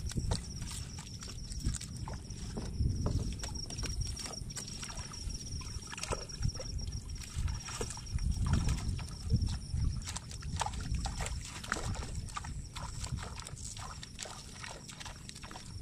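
Pond water sloshing and dripping as a net trap is hauled up beside a small boat, with many small knocks and taps of the net, its hoop and the catch against the hull.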